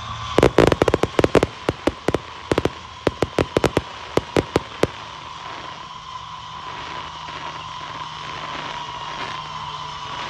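Fireworks going off in a rapid, irregular string of about two dozen sharp bangs over roughly four and a half seconds, then stopping. Under them runs the steady whine of the drone's propellers.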